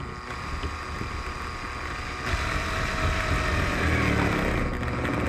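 Cordless drill running steadily through a right-angle screwdriver attachment, driving a small screw; the motor gets louder a little over two seconds in.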